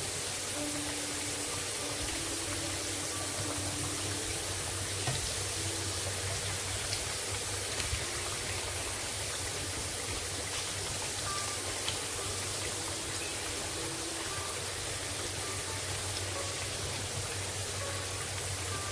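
Potatoes frying in hot oil in a pan: a steady sizzle, with a few faint clicks.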